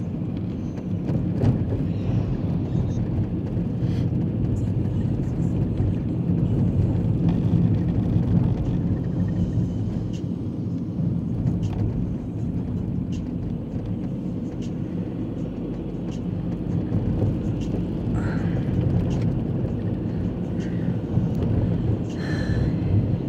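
Steady low rumble of a car driving, engine and road noise heard from inside the cabin, with scattered faint clicks.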